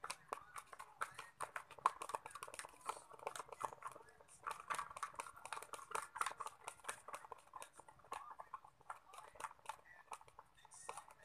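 Homemade slime being kneaded and squeezed by hand, a rapid, irregular stream of wet clicks and pops.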